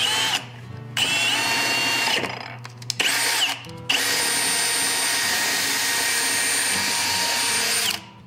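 Cordless drill boring through a forged metal strap into the wooden drawer front beneath. Three short runs of the motor, the third with a rising and falling whine, then one long steady run of about four seconds that stops sharply near the end.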